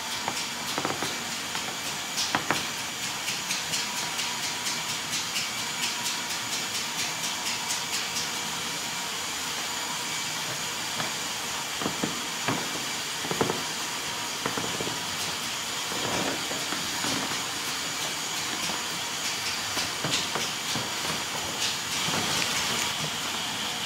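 K'NEX ride and roller-coaster models running: a steady mechanical hiss and whir with light plastic clicking, about two clicks a second for a stretch near the start and scattered clacks later.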